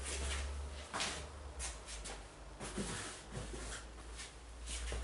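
Quiet room tone: a low steady hum with several faint, short clicks and knocks.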